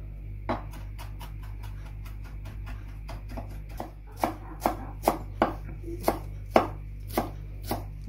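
Chef's knife chopping fresh parsley on a wooden cutting board: a run of knocks, light at first, then louder and steady from about four seconds in at roughly two to three a second.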